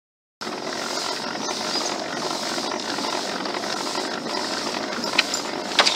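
Steady rushing noise of a pedal-driven boat under way, its chain drive turning and water churning. It starts abruptly just after a cut, and a couple of sharp clicks come near the end.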